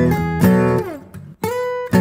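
Background music: guitar strumming chords, with notes sliding down in pitch about halfway through.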